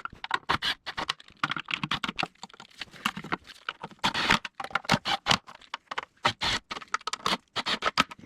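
Ratchet wrench clicking in quick, irregular runs as the 8 mm intake manifold bolts are run down.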